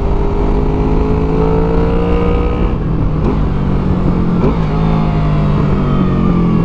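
Honda VFR800's V4 engine with a Delkevic aftermarket exhaust pulling under acceleration, the pitch climbing and then dropping twice as it is upshifted, about three seconds in and again about a second and a half later. Wind rushes steadily underneath.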